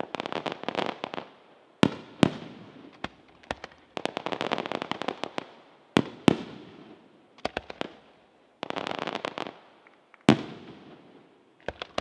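Aerial firework shells bursting overhead: sharp single bangs, twice in quick pairs, alternating every few seconds with dense spells of crackling from crackling stars.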